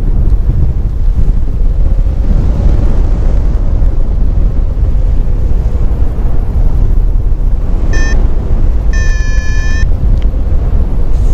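Airflow buffeting the microphone of a helmet camera on a paraglider in flight: a loud, steady, deep rumble. About eight seconds in, a short electronic beep sounds, followed a second later by a longer steady beep.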